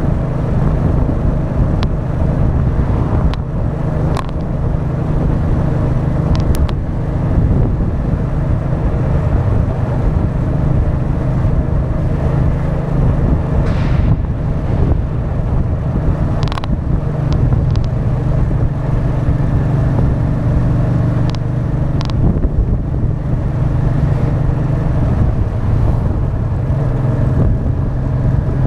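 Honda Deauville 650's V-twin engine running steadily as the motorcycle rides along, heard from a camera mounted on the front of the bike, with wind and road rush and a few short knocks.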